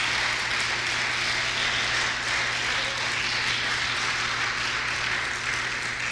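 Congregation applauding, a steady clapping from many hands.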